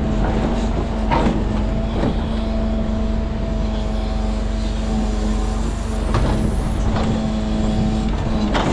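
Diesel engine of a Mercedes Arocs timber truck running steadily with a low hum, and several short knocks and clunks over it.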